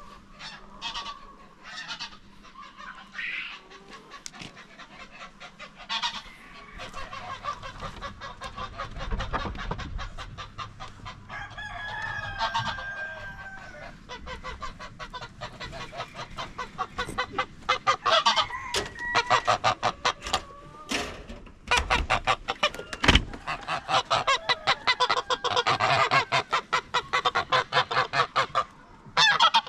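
A flock of farm poultry calling with rapid, overlapping calls that grow denser and louder in the second half, plus a few low thumps.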